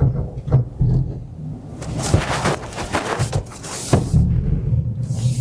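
Car spinning a donut in snow: tyres churning and the engine running, with a rushing noise in the middle stretch and a few knocks. Music with a pulsing bass plays throughout.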